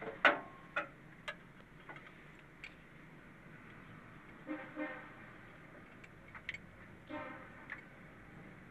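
Sharp metallic clinks of hand tools knocking against the engine, the loudest one just after the start, with a vehicle horn honking twice in the background, about halfway through and near the end.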